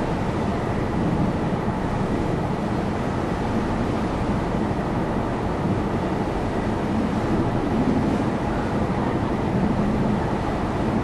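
Steady low drone of the car ferry Dai-10 Kofuji's engines under way, with a constant rush of wind.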